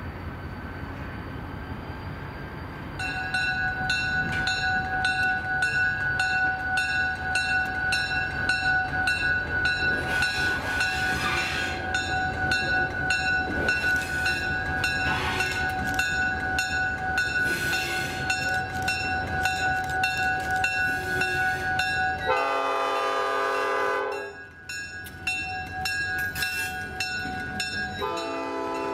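EMD GP38 and GP35 diesel locomotives rumble past with the locomotive bell ringing steadily, about two strokes a second, from about three seconds in. Near the end the air horn sounds one long chord-like blast, and a second blast begins just before the end.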